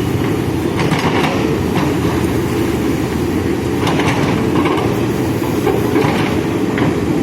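Backhoe loader's diesel engine running steadily under load, with several short knocks from the digging work.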